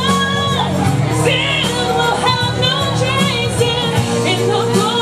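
A woman singing into a corded microphone over an instrumental backing, her voice gliding and wavering on held notes above steady low accompaniment notes.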